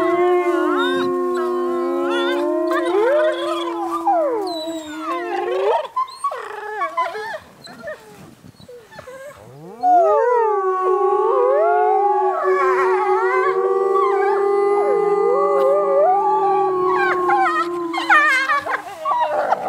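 People and wolves howling together: a chorus of long, overlapping howls at several pitches, some wavering and gliding. About six seconds in the chorus breaks off into scattered short calls. It swells again about ten seconds in, then breaks into quick yips near the end.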